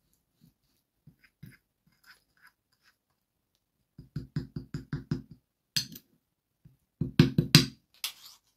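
A spoon stirring a paste of cumin, oil and honey in a small dish, knocking and scraping against it in quick strokes of about six a second. The strokes come in two spells of about a second each, with a sharp click between them.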